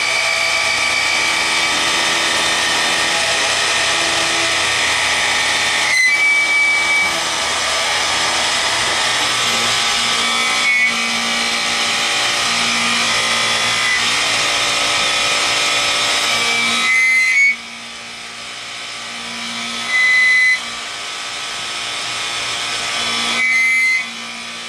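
CNC mill-turn machine cutting a metal part, its milling spindle running with a steady whine of several fixed tones over the noise of the cut. About seventeen seconds in the sound drops away sharply, and then comes back louder twice, briefly.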